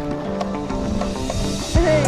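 Background music with held tones and light percussion, and a rising swish near the end.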